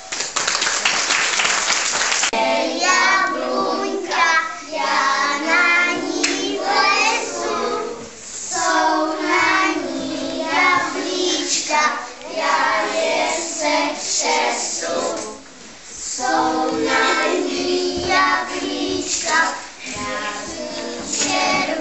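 A short burst of applause, then a group of young children singing a song together in phrases.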